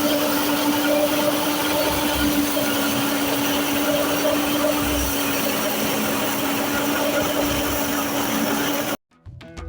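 Wheat threshing machine running steadily: a dense mechanical noise with a constant hum. It cuts off abruptly near the end, and drum-led music begins.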